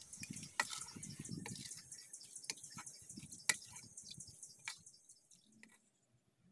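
Hot oil sizzling faintly in a wok as fried dried red chillies are lifted out with a spatula and wire strainer, with several sharp clicks and crackles; it dies away about five seconds in.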